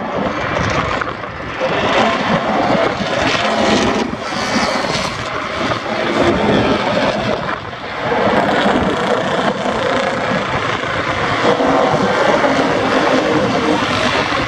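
Several vintage racing motorcycles built before 1972 running at speed on a circuit. Their engines rev and swell as they pass one after another in a loud, continuous mix.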